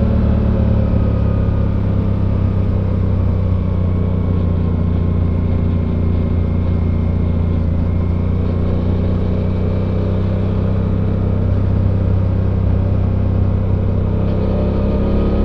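Suzuki V-Strom 800's 776 cc parallel-twin engine with its stock exhaust, heard from onboard while riding. The engine note eases down at first, holds a steady cruise, then rises again near the end as the bike accelerates.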